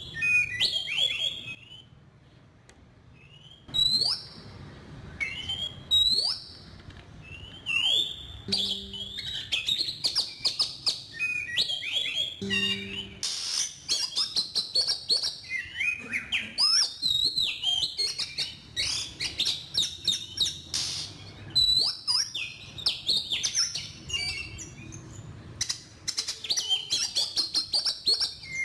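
Oriental magpie-robin song played as a trapping decoy: a varied run of loud whistled notes sliding up and down, mixed with sharp clicks, with a short lull about two seconds in.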